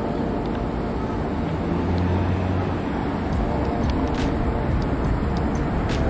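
Steady city street traffic noise, with a passing vehicle's low rumble swelling about two seconds in and fading about a second later.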